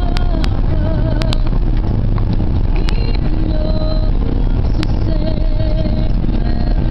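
Car driving slowly over snow-covered pavement, heard from inside the cabin: a steady low rumble of engine and tyres, with a few sharp clicks in the first few seconds.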